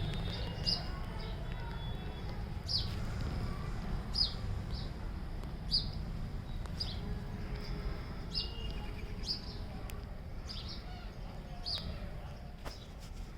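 A single bird chirping over and over, short sharp high calls about every one to one and a half seconds, over a steady low background rumble.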